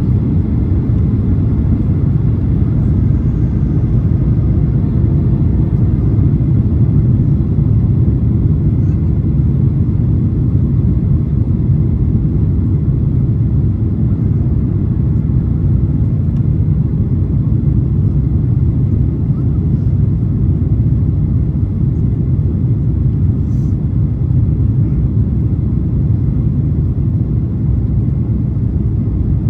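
Boeing 737-800 in flight, heard from inside the cabin: a steady low rumble of airflow and engine noise, even throughout.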